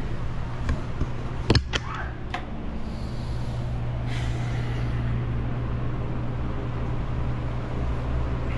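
Steady low hum of a car on the move, heard inside the cabin, with a few sharp clicks or knocks between about one and a half and two and a half seconds in.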